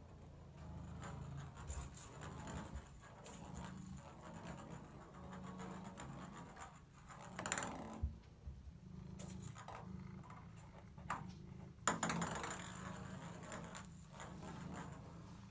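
Domestic cat purring steadily while a ping pong ball clicks and rolls around a bathtub, with light scratching of paws. The sharpest knocks of the ball come about halfway through and again about three-quarters through.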